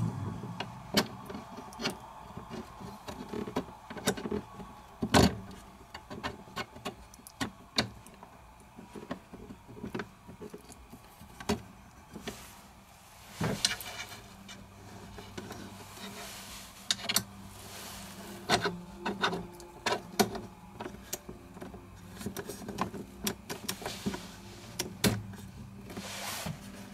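Small metal pins and retaining clips being fitted into the plastic lock-cylinder plate of a BMW K1200LT top case: irregular clicks, taps and light knocks of metal on hard plastic.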